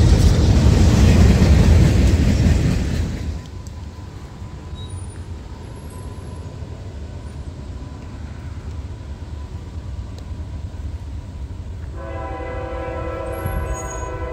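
Freight train cars rolling past on the rails, the loud rumble dropping away about three seconds in as the last car clears. About twelve seconds in, a locomotive horn starts sounding a steady chord of several notes and holds on.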